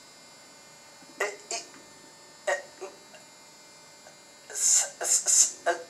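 A few short bursts of a person's voice over a steady electrical hum, with a cluster of them near the end.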